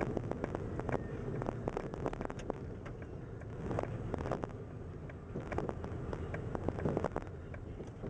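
Steady low wind rumble on the microphone, with a dense scatter of short sharp crackling clicks.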